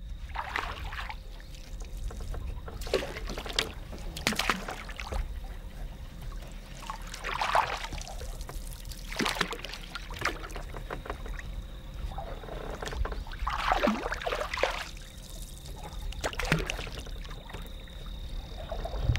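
A canoe being poled through shallow water: the poles dip and push, and water swishes and splashes against the hull in irregular surges every one to three seconds, over a steady low rumble.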